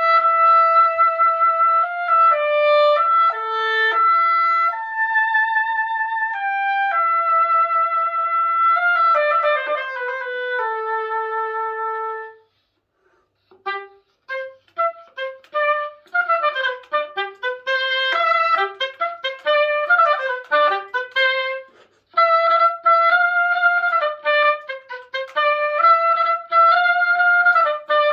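Oboe played solo with its reed fitted. It plays a slow melody of held notes, breaks off about twelve seconds in, then plays a quick run of short notes and returns to held notes near the end.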